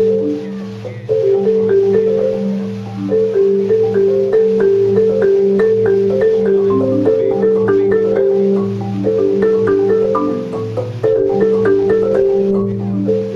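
Background music: a quick mallet-percussion melody, like a marimba, over a steady bass line.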